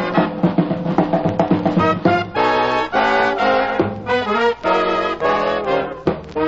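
Swing band music led by brass: quick repeated notes over drums, then held brass chords from about two seconds in.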